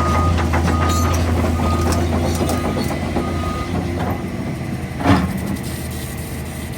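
Heavy demolition machinery running with a steady engine hum, a short beeping alarm repeating about five times in the first few seconds, scattered knocks, and one loud crash about five seconds in.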